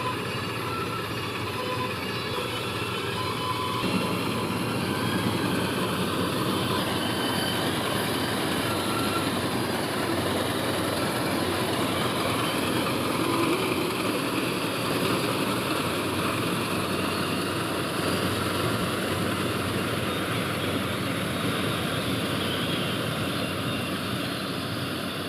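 Heavy diesel farm machinery running steadily under load, a dense continuous mechanical clatter and rumble.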